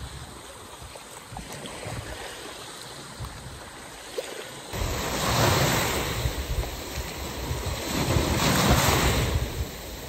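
Small sea waves washing onto a sandy shore. About halfway through the sound jumps louder and closer as foaming surf runs up over the sand, swelling twice.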